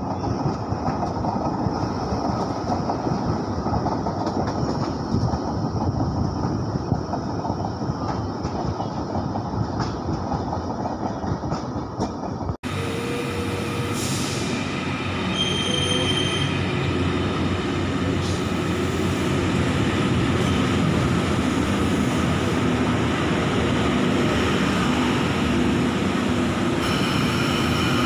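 Double-deck electric commuter trains: first one running past on the line with steady rolling noise, then, after a sudden cut about halfway through, one pulling into a station platform with wheel squeal. A brief high ringing tone sounds shortly after the cut.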